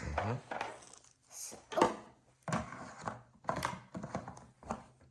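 Plastic parts of a Play-Doh kitchen set being handled and fitted together: a string of irregular clicks and knocks, the loudest about two seconds in.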